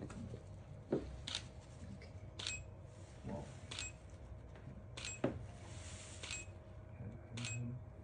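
Camera shutter clicking six times at an even pace, a little over a second apart, over a faint steady hum.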